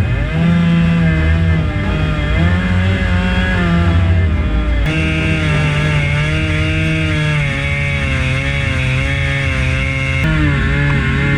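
Husqvarna chainsaw on an Alaskan chainsaw mill, running at high revs under load while ripping a large log lengthwise into a slab. Its engine pitch wavers as the saw bogs and recovers in the cut, and the sound jumps abruptly twice.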